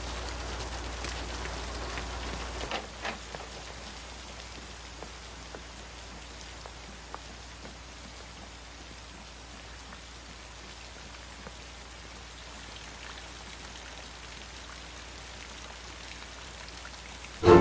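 Steady rain falling, with scattered drips. A low rumble underneath stops about three seconds in.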